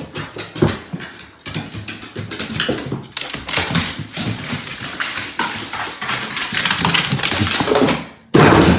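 A dog moving about, with a dense, irregular run of quick clicks and scuffles and a short pitched whine near the end.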